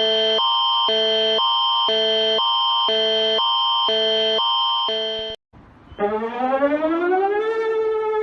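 Emergency alert alarm tone: a steady high tone with a lower chord switching on and off about twice a second, which cuts off about five seconds in. After a short gap, a siren winds up, rising in pitch for about a second and a half and then holding.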